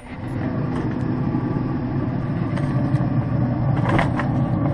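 Pellet grill running with a steady low motor hum. A few light metallic clicks come about four seconds in as a foil pan is set on the grill grate.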